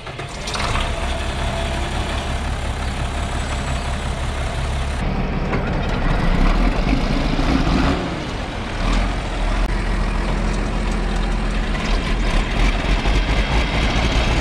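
John Deere six-cylinder diesel tractor engines idling just after a cold start, a steady low rumble that changes in tone about five and eight seconds in.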